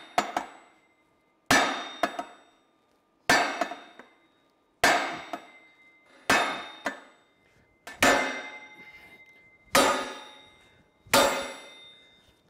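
An 8-pound sledgehammer striking a steel socket set against an Allis-Chalmers D17 rear axle shaft, driving the stuck shaft out of the final drive housing. Seven heavy blows come about every one and a half seconds, each with a metallic ring that dies away before the next.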